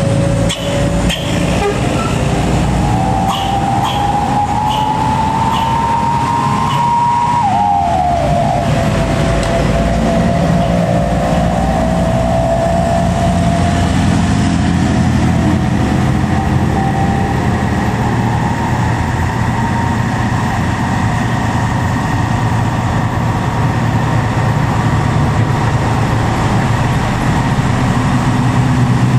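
Diesel engine of a Nissan Diesel–chassis Tadano truck crane pulling under load up a hill: a steady low rumble with a whine that rises in pitch, drops sharply about seven seconds in, then slowly rises again.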